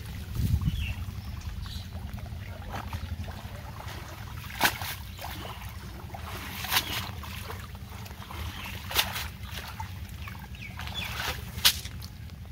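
Water sloshing and splashing as a man wades and handles a cast net, with four sharper splashes about two seconds apart over a low steady rumble.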